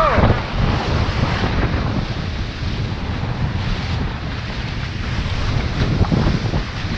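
Wind buffeting the microphone over the rush of sea water along the hulls of a Leopard 46 sailing catamaran under way.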